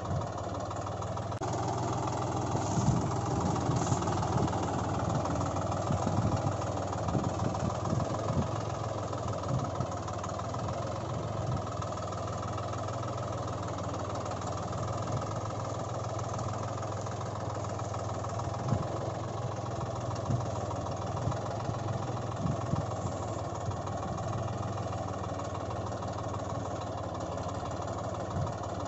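Tractor engine running steadily at idle, with irregular low knocks, most of them in the first third.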